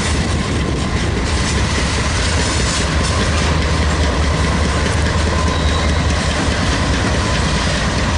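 Freight train rolling past: a steady low rumble with the wheels clacking over the rail joints.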